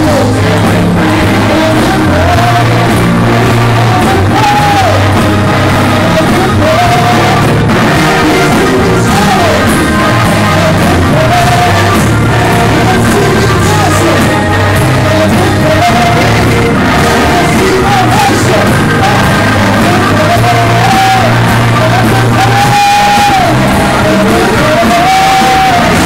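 Gospel choir singing loudly over a live band with a steady bass line, with shouts and whoops from the congregation.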